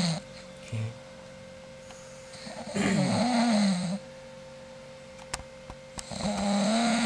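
A sleeping person snoring loudly: each pitched, wavering snore lasts about a second and comes every three seconds or so.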